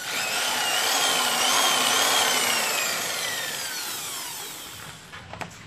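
Electric hand drill motor running under the trigger: its whine rises as it starts, wavers in pitch, then falls steadily as the motor winds down. A few sharp clicks near the end.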